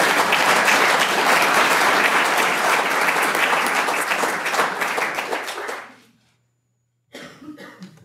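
Audience applauding, a dense patter of many hands clapping that tapers off and stops about six seconds in. A brief, quieter sound follows near the end.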